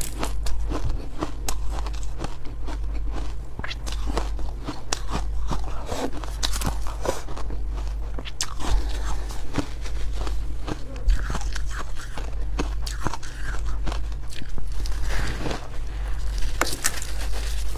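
Crunching and chewing of hard freezer ice coated in buckwheat, a steady run of small cracks and crackles, with a fresh bite into a chunk near the end. A steady low hum lies underneath.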